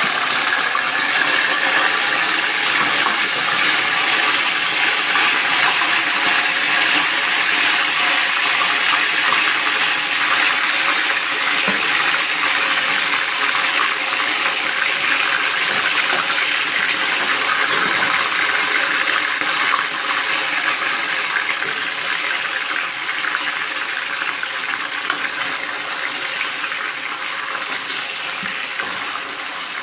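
Sliced, marinated liver deep-frying in hot oil: a loud, steady sizzle that eases a little over the last third.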